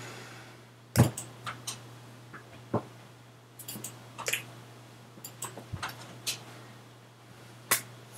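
Scattered sharp taps and soft rubs from hands striking and brushing each other and the shirt, the loudest tap about a second in and another near the end, over a steady low hum.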